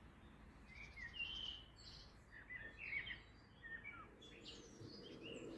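Faint, scattered chirps and short sweeping calls of several birds in the background. Near the end a low, steady hum comes in and grows louder.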